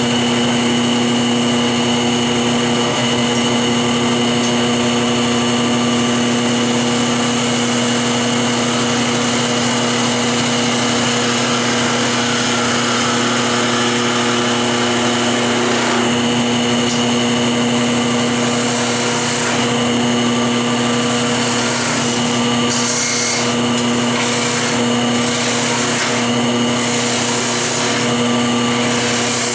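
Wood lathe running steadily with a hum while a turning tool cuts a spinning block of hard hickory, a continuous hiss of cutting. In the last third the cutting comes and goes in short passes.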